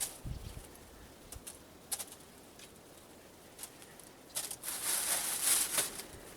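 Small wild birds close by: scattered sharp taps and a flurry of fluttering wings about four and a half seconds in.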